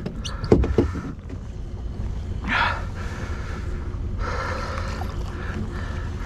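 Low steady rumble of a boat's motor, with a few sharp knocks around half a second in and a short hiss about two and a half seconds in.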